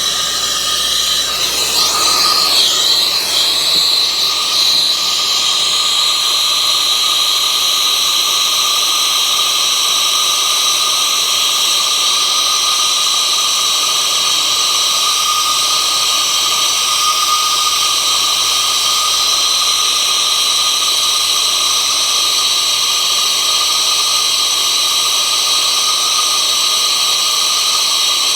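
Turbo torch flame burning steadily on large copper pipe: a loud, even hissing rush with a steady whistle in it, heating the joint for soldering.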